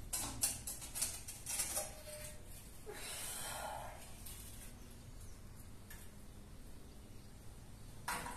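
Light knocks and scrapes of a large L-shaped cut wall tile being lifted off the wall and handled, in a quick cluster over the first two seconds. A breathy rush of noise follows about three seconds in, then low room sound until another knock near the end.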